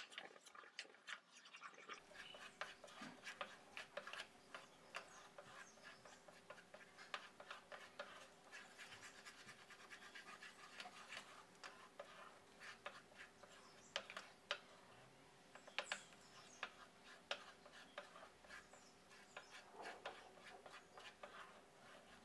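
Faint scraping and scratching of a wooden spatula stirring a thick milk-powder mixture around a nonstick pan, with many small irregular clicks. A faint steady hum comes in about two seconds in.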